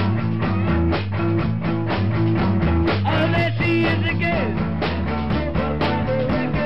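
Rock band playing a song: regular drum hits over a steady bass and chords, with a lead line that slides up and down between notes.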